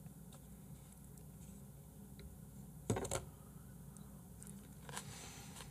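Quiet eating: faint room tone with a couple of short clicks about three seconds in and a softer one near the end, as a piece of raw beef is lifted with chopsticks and taken into the mouth.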